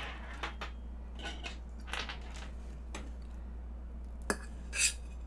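A metal fork clinking and scraping against a stainless steel bowl while cutting cake, a few scattered clinks with the sharpest two near the end, over a steady low hum.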